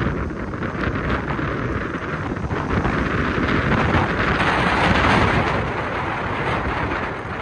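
Sea surf breaking and washing up a sandy beach, with wind buffeting the microphone. The wash swells to its loudest about four to five seconds in, then eases.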